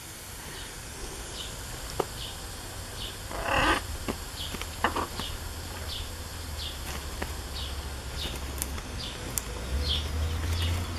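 Blue-and-gold macaw moving and flapping its wings on its perch, with one short, louder sound about three and a half seconds in. Faint high chirps repeat about twice a second.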